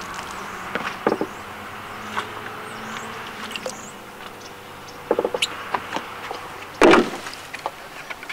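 Spinning reel being cranked as a small fish is brought in and swung aboard: light mechanical whirring and scattered clicks over outdoor ambience, with a brief loud burst about seven seconds in.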